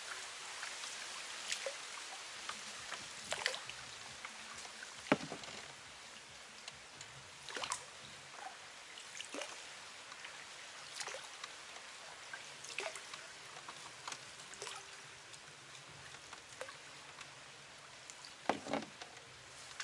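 Oar strokes of a rowed coracle: short splashes and drips of water every second or two over a light steady hiss, with the biggest splashes about five seconds in and near the end.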